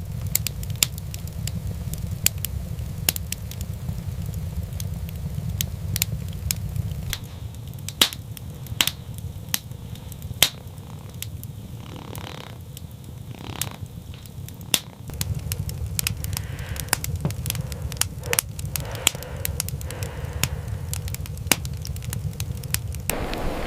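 Wood fire crackling, with frequent sharp irregular pops and snaps over a steady low rumble.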